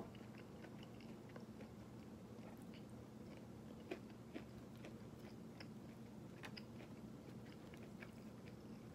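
Faint chewing and biting of fried food: small scattered crunches and mouth clicks, with a couple of sharper clicks about four seconds in, over a steady low hum.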